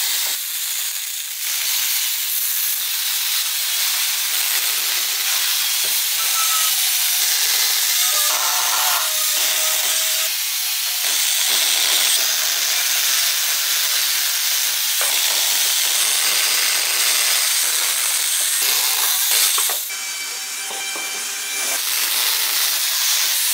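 Chainsaw attachment on an electric angle grinder cutting into a block of wood: a steady, high-pitched hissing whine of the chain chewing through the wood. It dips briefly twice, once about a second and a half in and once for a couple of seconds near the end.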